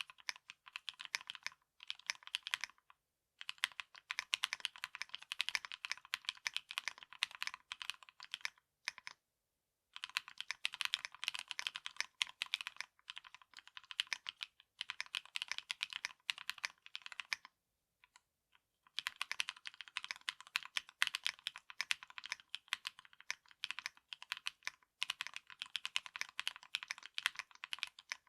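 Fast typing on a 40% mechanical keyboard with lubed Namazu switches on thick 63.5 g springs, a polypropylene plate and PBT keycaps. Dense runs of keystrokes, with short pauses about 3 seconds in, around 9 seconds in and again between about 17 and 19 seconds in.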